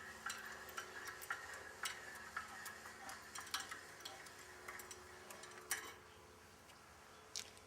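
Irregular light clicking and clinking, a few clicks a second, from the Ringmaster tyre tool's threaded push bar being cranked back off with its speed handle. The clicks stop about six seconds in, and one more comes near the end.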